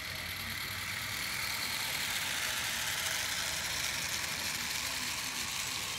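A live-steam 16 mm scale garden-railway locomotive running past with its train: a hissing rush that swells around the middle and eases near the end.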